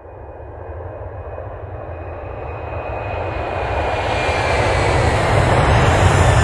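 Jet aircraft engine noise building steadily louder, a deep rumble with a faint high whine that drifts slightly down in pitch.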